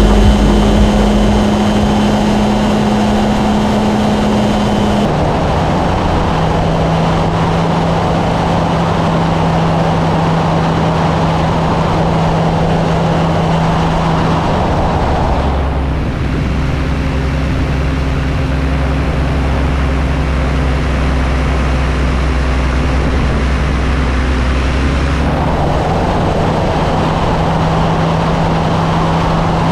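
Kolb Firefly ultralight's engine and propeller running steadily in flight, with a rush of air over the airframe. The engine's pitch drops about five seconds in and changes again twice later on.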